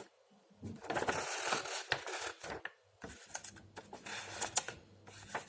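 Handling noise: light rustling and scraping for about two seconds, then a scatter of small clicks and taps.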